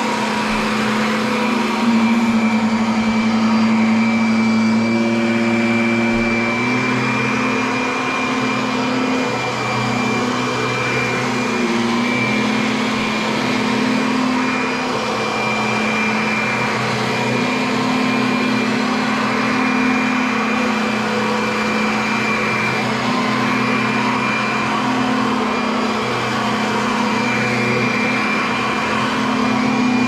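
Vacuum cleaner running steadily, its motor hum stepping back and forth between two slightly different pitches every few seconds over a constant rushing hiss.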